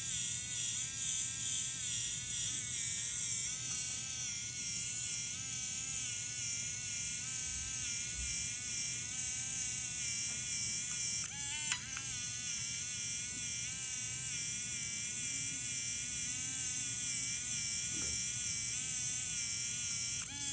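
PIKA 3D printing pen's small feed motor whining steadily as it pushes PLA filament through the hot nozzle, the pitch wavering about twice a second, with a brief dip in pitch about eleven seconds in.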